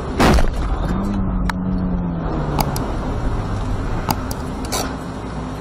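Steady engine and road noise of a car driving, heard from a dashcam, with a loud brief bang less than a second in. A low tone sinks slightly for about two seconds, and a few sharp clicks follow.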